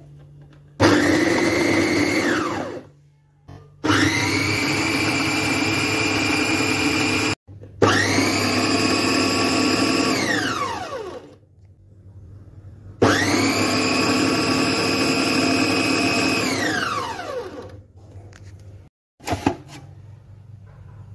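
Mara food processor motor running in four pulses of a few seconds each, grinding dry bread crusts into crumbs. Each pulse whines quickly up to speed, holds, then winds down in pitch. A brief knock comes near the end.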